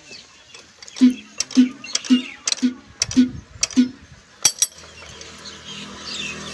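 Hand-working of the fuel pump on an old stationary diesel engine: six sharp metallic clicks, evenly spaced about half a second apart, then two quicker clicks close together.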